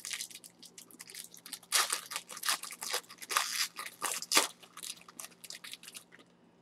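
Foil trading-card pack wrappers crinkling and tearing as the packs are pulled open by hand, in quick irregular crackles that stop about six seconds in.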